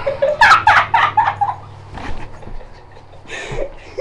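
Laughter in a quick run of short bursts, dying away after about a second and a half.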